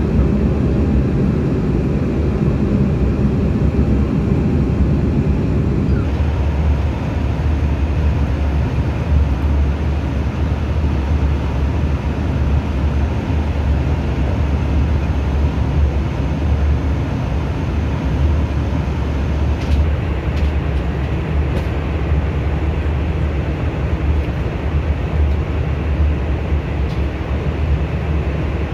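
Cabin noise of an Embraer E190-E2 airliner in flight: a steady, loud rumble of the engines and airflow. About six seconds in, the rumble turns deeper. A few faint clicks come in the second half.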